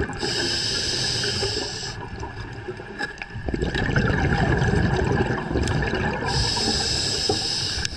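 Scuba diver breathing through a regulator underwater: a hissing inhale near the start, a long rush of exhaled bubbles in the middle, and another hissing inhale near the end.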